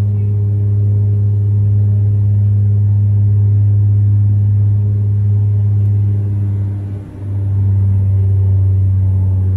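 Cabin drone of a Bombardier Dash 8 Q400's turboprop engines and spinning propellers, heard inside the cabin from a window seat beside the propeller. It is a loud, steady low hum with a brief dip in loudness about seven seconds in.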